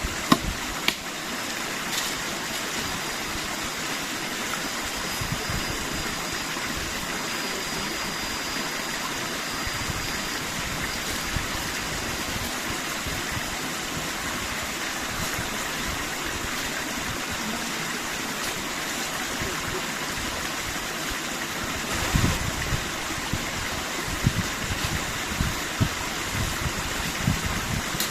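Small forest creek flowing steadily, with irregular low thumps and bumps in the last few seconds.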